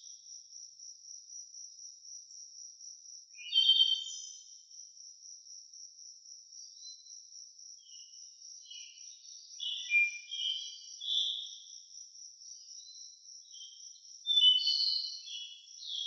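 Crickets chirping in a steady, high, evenly pulsing trill, with birds singing short chirpy phrases now and then, loudest about four seconds in and again near the end.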